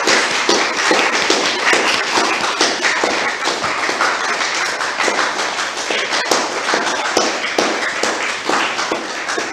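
Audience applauding: dense, steady clapping that eases off a little near the end.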